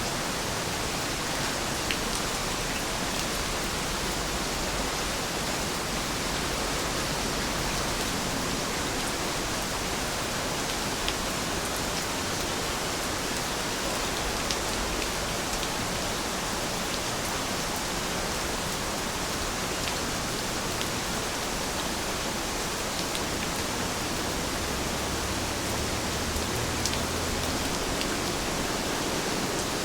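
Steady rain falling in a dense, even hiss, with a few sharper drop ticks here and there.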